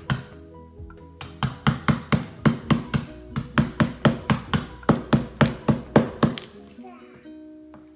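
A quick, even run of knocks on a wooden cutting board, about three or four a second: lemongrass stalks being pounded to bruise them. The knocks pause briefly near the start and stop about two-thirds of the way through.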